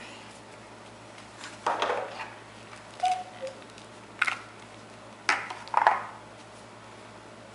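Plastic ice cube trays clattering and knocking, in a series of short clatters about once a second.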